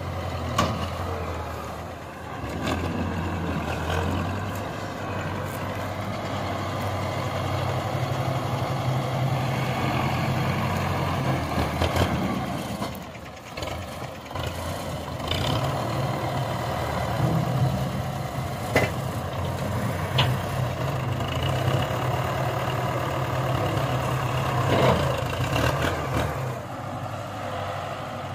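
Belarus tractor's diesel engine running steadily while it works its hydraulic front loader, lifting and dumping straw; the engine note dips briefly twice, and a few sharp knocks sound in the middle.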